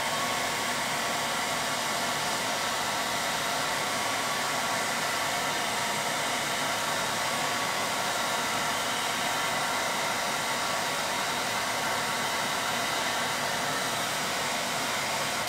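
Handheld blow dryer running steadily on heat: an even rush of blown air with a faint motor whine.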